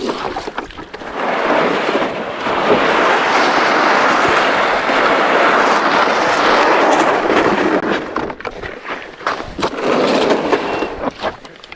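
Plastic ice-fishing sled dragged over rough ice: a steady scraping rattle for about seven seconds, which breaks up into scattered scrapes and boot steps on the ice near the end.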